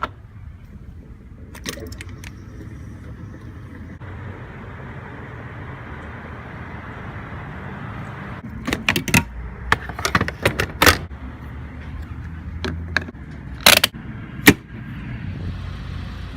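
Keys jangling and a series of sharp clicks and clunks, in clusters about two seconds in, from about nine to eleven seconds, and twice near the end, over a steady low hum.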